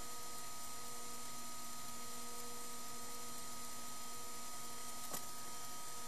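Steady electrical hum and hiss of running computer equipment, with several steady whining tones and a single faint click about five seconds in.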